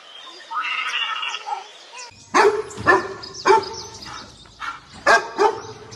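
A dog barking repeatedly, sharp barks about every half second from about two seconds in, after a short pitched call near the start.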